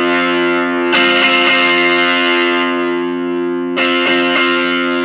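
Electric guitar chord played through an Ibanez Tube Screamer Mini overdrive pedal, strummed and left to ring. It is struck again with a few quick strokes about a second in and just before four seconds in, as the pedal's tone control is demonstrated.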